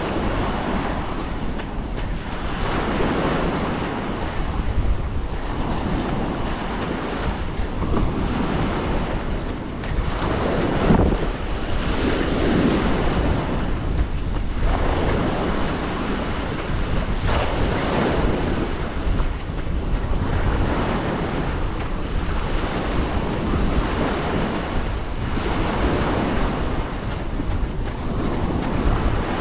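Small waves breaking and washing up a sandy shore, surging every two to three seconds, with wind rumbling on the microphone.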